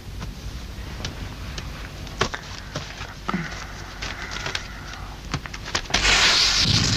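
A few scattered small clicks and rustles, then about six seconds in a loud rushing hiss breaks in suddenly and holds: a film sound effect for a cloud of smoke billowing up.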